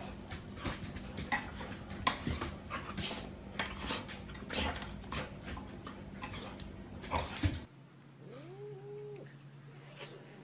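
Two cats tussling on a wooden chair: a dense run of scuffling knocks and scratches over a low steady hum. Near the end this cuts off, and a single drawn-out animal call rises, holds and falls.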